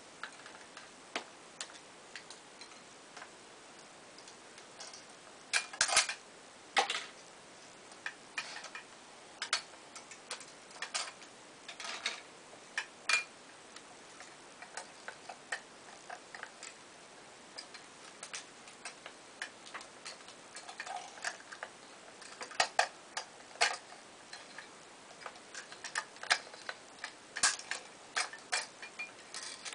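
Irregular clicks, taps and light rattles of small hard plastic parts and packets being picked up and handled, some in quick clusters.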